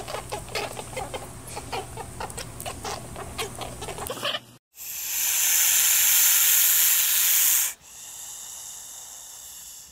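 A monitor lizard hissing loudly for about three seconds, starting about halfway through and followed by a fainter, steady hiss. Before it comes a quick run of short, sharp clicks.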